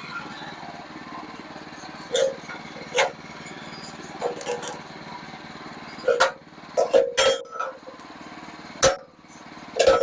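Sawmill engine running steadily, with a series of sharp metallic clanks and knocks over it. The engine's note drops about nine seconds in.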